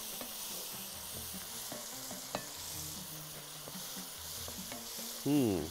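Onions and tomatoes sizzling in a pot on the hob while a spoon stirs them, with a steady hiss and a few light scrapes and clicks, one sharper knock of the spoon on the pot about halfway through.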